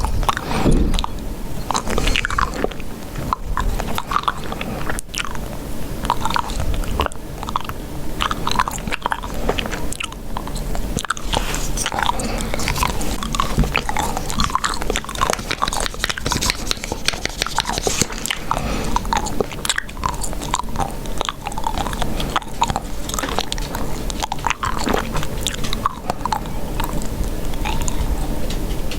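Close-miked chewing gum being chewed continuously, with many short wet clicks and crackles from the mouth.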